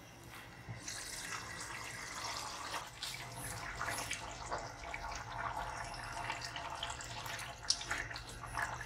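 Chicken-and-chickpea curry simmering in a pot, bubbling and sloshing as a silicone spatula stirs through it, with a few soft scrapes near the end.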